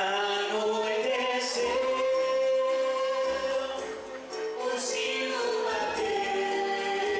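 A male and female pop duo singing into microphones over band accompaniment, with a long held note in the first half before a new phrase begins.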